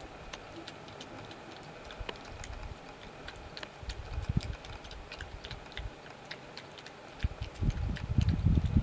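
European badger eating at a feeding table: irregular wet clicks and crunches of munching. A louder, low, rumbling and thumping noise builds near the end.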